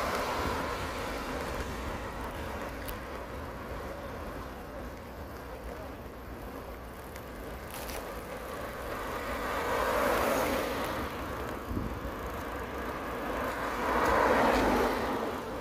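Road traffic: cars passing one at a time, each swelling and fading, one past the middle and another near the end, over a steady low rumble.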